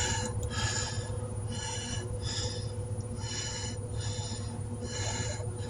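Vehicle turn-signal or hazard-flasher ticking in pairs, about one tick-tock every second and a half, over a steady low engine idle hum inside the truck cab.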